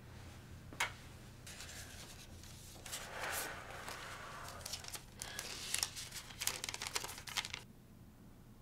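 Paper being torn open and crinkled as a folded note is unfolded by hand: a run of rustling with many sharp crackles, loudest near the end. A single click comes about a second in.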